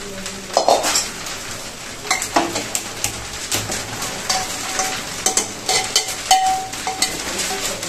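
Metal spoon scraping and knocking inside an aluminium pressure cooker while stirring thick masala and meat, with repeated sharp clinks and a short metallic ringing a little after halfway.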